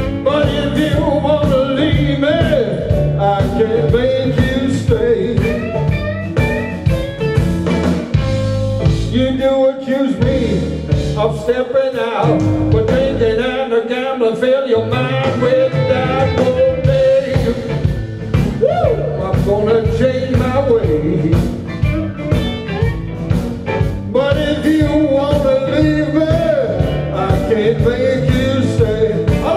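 Live blues band playing: a man singing over electric guitars, keyboard and drums. The low end drops out for a few seconds about ten seconds in, then the full band comes back.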